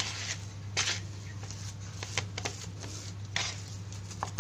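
Plastic spatula scraping and pressing soft fish-bait dough around a plastic bowl, a short scrape every second or so, over a steady low hum.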